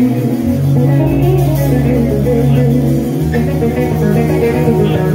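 Live band music: electric guitar and bass guitar lines over keyboard, with held bass notes that change pitch a couple of times.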